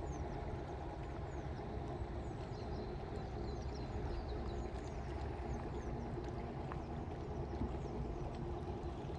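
Boat engine running steadily on the river, a low rumble with a few steady hum tones. Short, high chirps are scattered through it.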